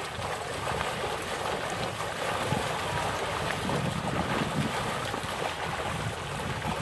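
Wind buffeting the phone's microphone as a steady low rumble and rush, with pond water sloshing as a fish net is hauled in.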